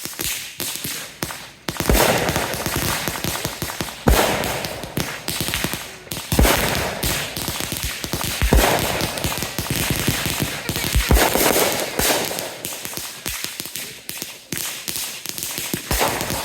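Fireworks going off: a steady run of rapid crackling pops, with a heavier bang about every two seconds.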